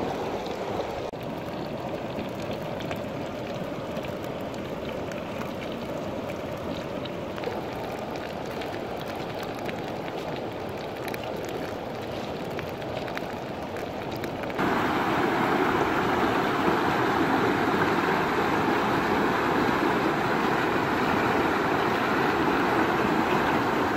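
Whole fish sizzling on a hot stone slab over a wood fire, a steady hiss with many small crackles. About fifteen seconds in, this gives way suddenly to the louder, steady rush of river water pouring through rapids.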